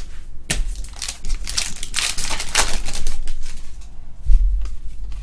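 Trading cards rustling and sliding against each other as they are flipped through by hand, a dense crackling shuffle that is loudest in the middle. A dull low bump comes about four seconds in.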